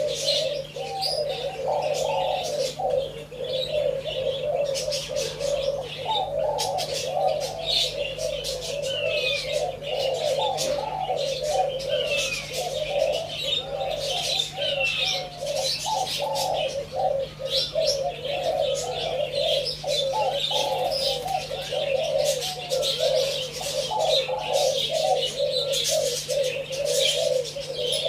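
Spotted dove cooing in long rolling phrases, one after another without pause, with small birds chirping higher up and scattered clicks.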